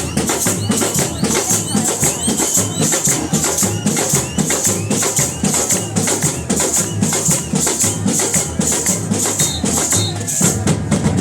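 Samba drum section (batería) playing a steady rhythm: low bass drums under a continuous shaker and snare patter, with accents about twice a second.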